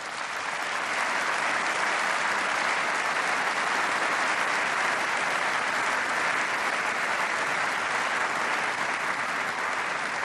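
Applause from a large seated assembly, many people clapping at once. It swells in over the first second, holds steady, then eases slightly near the end.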